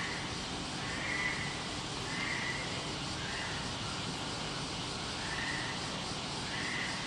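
An animal calling over and over, short calls about once a second and alternating slightly in pitch, over a steady background hiss.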